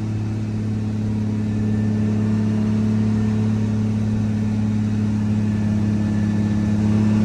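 Diesel engine of a Volkswagen Constellation truck running steadily on the move, heard inside the cab as a constant low drone.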